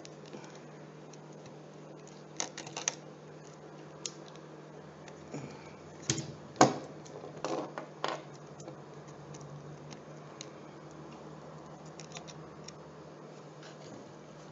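Scattered small clicks and taps of a screwdriver and fingers on a Dell Latitude E4300 laptop while its tiny keyboard screws are taken out, the loudest click a little past halfway, over a steady low hum.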